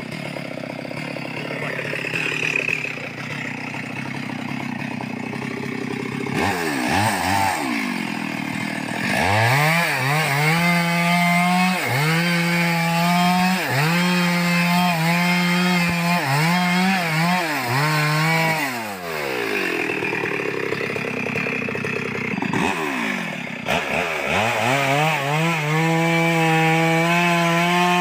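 Two-stroke chainsaw idling, then revving up and held at high revs as it cuts through a log, the pitch dipping briefly now and then under load. It drops back to idle about two-thirds through, then revs up and cuts again to the end.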